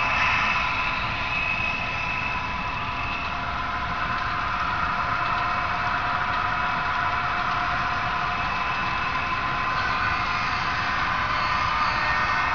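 Model train running steadily along the layout track: a continuous mechanical running sound with a few steady tones over an even noise.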